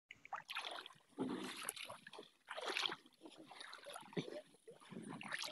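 Water splashing and sloshing in irregular bursts from wading through a shallow fishpond.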